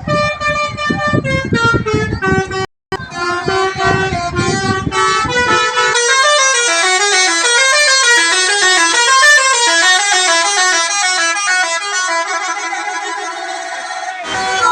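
A bus's basuri musical air horn playing a 'telolet' tune, a run of quick stepped notes. About six seconds in the notes come thicker and overlap, and the low rumble under them drops away.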